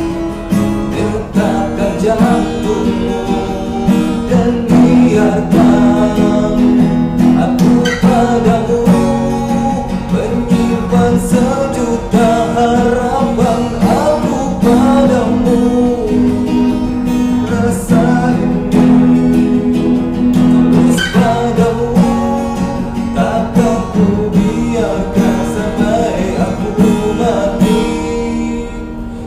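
A man singing with strummed acoustic guitar accompaniment.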